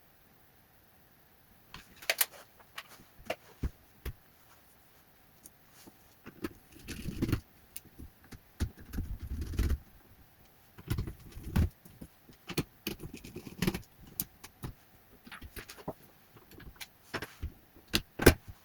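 Irregular clicks, taps and low thuds of hands handling small parts and tools while working on a laptop's internals.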